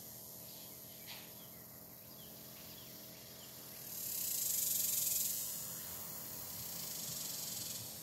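A chorus of cicadas buzzing as a high, hissing drone that swells loud about four seconds in, fades, then rises a little again near the end. There is one faint short knock about a second in.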